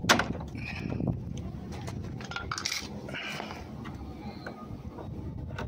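Metal lock-picking tools clicking and clinking against a Travex pin-tumbler door lock as it is picked, with a sharp click just after the start as the loudest sound.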